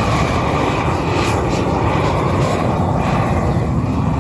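Propane weed-burner torch running with a steady rushing noise as its flame is played over squirrel carcasses to singe off the fur.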